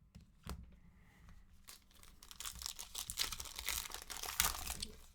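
Plastic crinkling and rustling as trading cards are handled in their packaging and sleeves, a couple of light clicks first, then crackling that thickens from about two seconds in.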